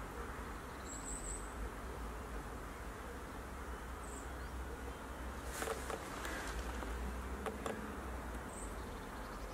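Insects buzzing in a steady background hum, with a few short high chirps and two brief clusters of clicks about six and seven and a half seconds in.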